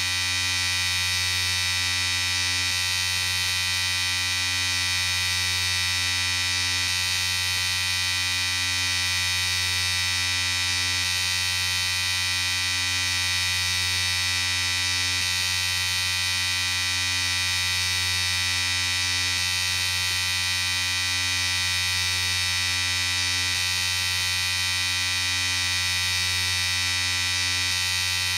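Electric shaver running continuously, a steady buzz that does not change.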